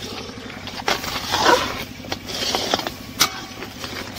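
Ladle stirring and scraping through a thick, wet mix of chana dal and jaggery syrup in an iron kadai, in repeated swishing strokes, with a sharp click about three seconds in.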